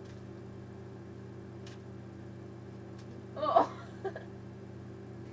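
A girl's short vocal cry, without words, about three and a half seconds in, with a smaller one just after, over a steady low hum.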